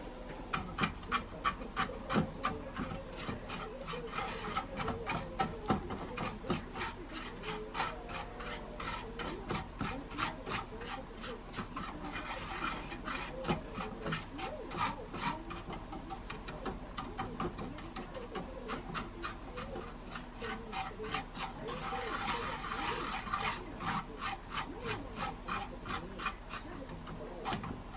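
Rhythmic rasping scrapes, about three strokes a second, of a utensil working food against a pan or bowl.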